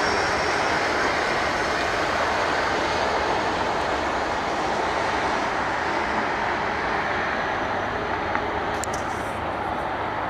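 Thai Airways wide-body airliner's jet engines: a steady broad roar that slowly fades as the aircraft rolls along the runway.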